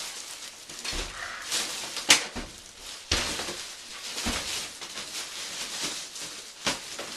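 Rustling and scraping of packaging as a computer case is handled and turned over, with a sharp click about two seconds in.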